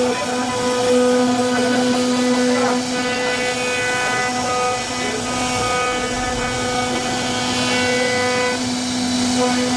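CNC router working wood: the spindle gives a steady whine over the noise of the cut.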